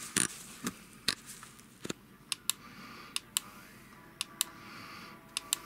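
A string of light, sharp clicks and taps, several in quick pairs, from a smartphone being picked up and its touchscreen tapped.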